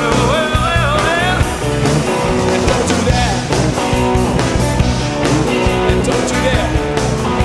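Live rock band playing: electric guitars, bass and drums in a steady groove, with a harmonica bending notes over the first second or so.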